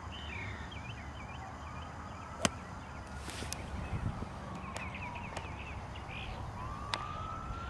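A golf club strikes a teed ball with a single sharp click about two and a half seconds in. Birds chirp, and a distant siren slowly wails up and down.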